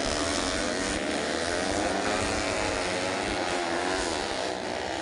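Four-stroke underbone racing motorcycle engines revving, their pitch wavering up and down, over a steady hiss.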